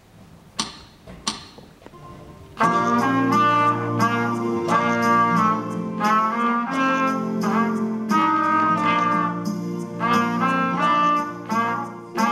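Two sharp clicks, then a school band comes in together and plays loudly, two trumpets carrying the melody over the band with a drum kit keeping a regular beat.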